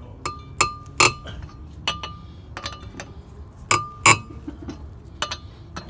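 Steel lug wrench clinking against the lug nuts and steel wheel as the nuts are turned by hand: about ten irregular, sharp metallic clinks, each with a short ring.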